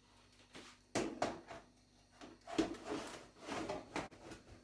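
A few light knocks and scrapes of a toaster oven's rack and baking pan being handled: one sharp knock about a second in, then a cluster of smaller clatters in the second half.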